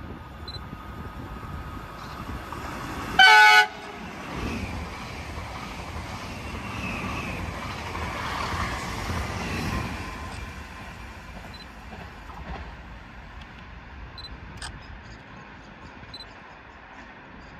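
A train gives one short horn blast, then passes, its running noise building up and dying away over several seconds.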